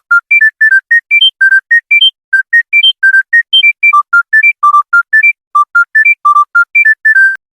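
Mobile phone ringtone: a quick melody of short, clean electronic beeps, about four notes a second, climbing in repeated rising runs, that stops just before the end.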